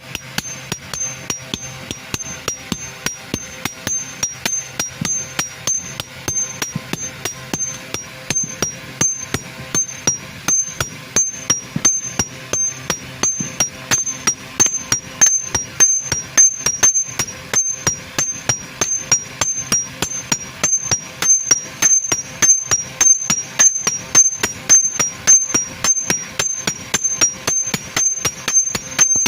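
Steady, rapid hammer blows on metal, about two to three a second, each ringing briefly with a high tone that alternates between two close pitches, as nails are made.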